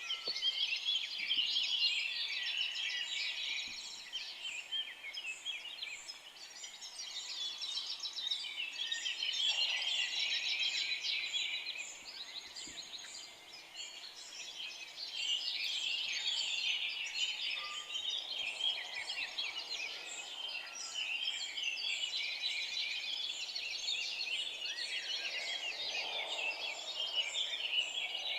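Dense chorus of many songbirds chirping and trilling at once, swelling and easing in waves every several seconds.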